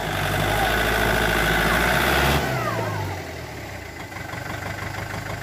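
Kubota L1-285 tractor's diesel engine running hard under a heavy load of logs. About two and a half seconds in, it is throttled back with a falling whine and settles to a quieter, even, rapid clatter.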